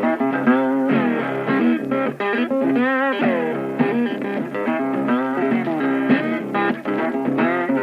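Instrumental music: a melody of quick notes, some wavering in pitch, over steady low held tones.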